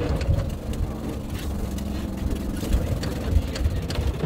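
The mini truck's engine runs under load as it pulls up a steep hill, a steady low rumble; the engine has an exhaust leak. Scattered clicks and rattles from the truck bouncing over rough ground run through it.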